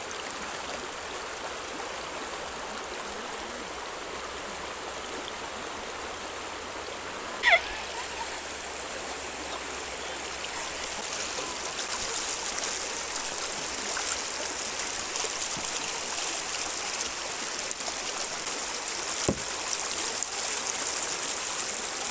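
River water rushing and splashing over shallow rapids around a kayak, a steady rushing that grows louder about halfway through. About seven seconds in, a short call falls steeply in pitch.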